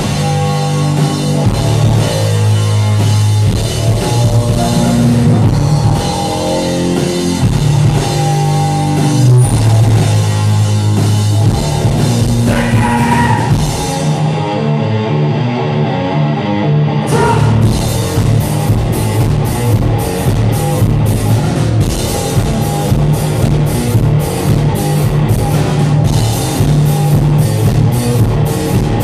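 Live rock band playing loudly: electric guitar and drum kit with a heavy low end. About halfway through, the drums and low end drop out for about three seconds, then the full band comes back in with steady, evenly spaced cymbal strokes.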